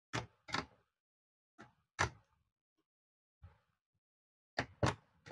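A string of short, irregularly spaced clicks and knocks as a Bajaj steam iron's plastic housing and a screwdriver are handled on a workbench during reassembly, about seven in all, the strongest around two seconds in and near the end.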